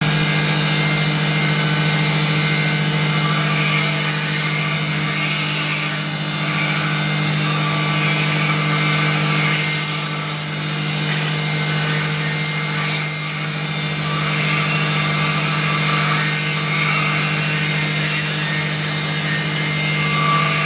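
Rotary jade-carving handpiece with a fine point bit grinding detail into a green jade bowl: a steady motor hum, with a higher gritty grinding that comes and goes as the bit bites into the stone.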